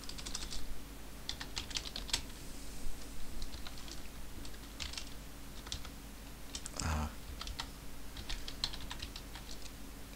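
Computer keyboard typing in short bursts of keystrokes with pauses between, over a low steady hum.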